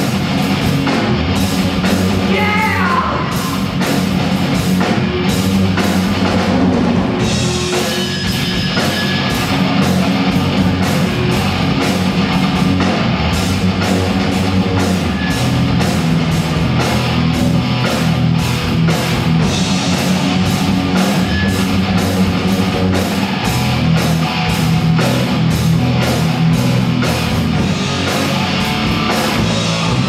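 Heavy metal band playing live: electric guitar and a drum kit keeping a steady beat, loud throughout.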